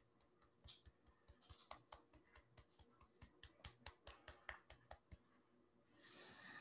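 Faint, rapid fingertip taps on the side of the other hand (the karate chop point in EFT tapping), about five light taps a second, stopping about five seconds in. A soft breathy rustle follows near the end.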